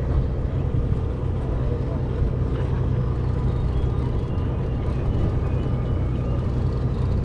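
A party boat's engine running steadily, a low even hum with no change in speed.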